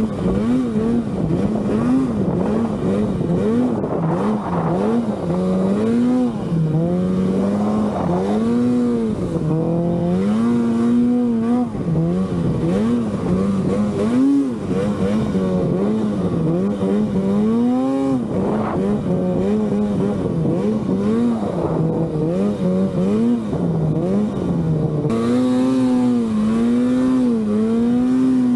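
Arctic Cat Alpha One snowmobile's two-stroke engine revving continuously while ridden through deep powder. Its pitch rises and falls every second or two with the throttle.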